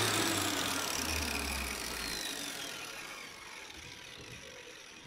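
Angle grinder coasting down after being switched off: its whine falls steadily in pitch and fades away over a few seconds.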